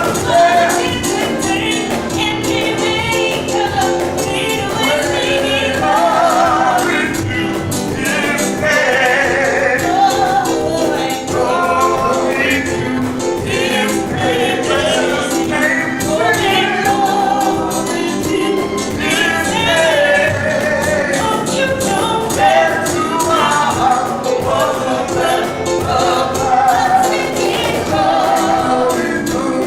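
Gospel-style worship singing by several voices, with a tambourine shaking along steadily.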